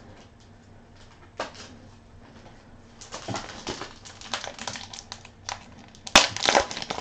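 Plastic crinkling and light clicks from trading cards and their plastic packaging being handled, sparse at first and getting busier about three seconds in, with a sharp click near the end.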